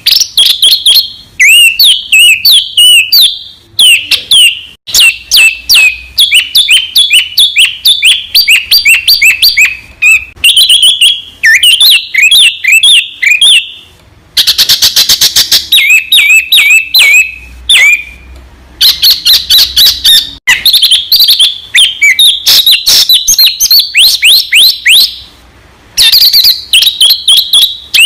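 Recorded songbird song played as masteran, the training audio that Indonesian bird keepers play so cage birds copy it. It is a dense, rapid run of chirps, whistles and falling sweeps, broken by a fast buzzy trill about halfway and a few short pauses.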